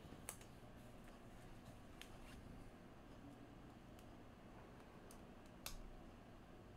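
Near silence with a handful of faint, scattered clicks and taps from trading cards being handled on the table, the loudest about two-thirds of the way through.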